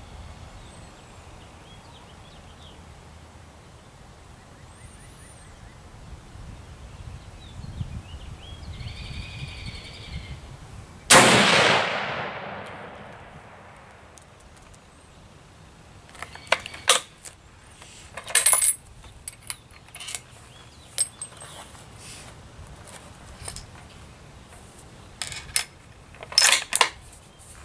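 One shot from a Remington 700 40X bolt-action rifle in .25-06: a loud crack with a long echoing tail about a third of the way in. Then a run of sharp metallic clicks and clacks as the single-shot bolt is worked to eject the spent case and chamber the next round.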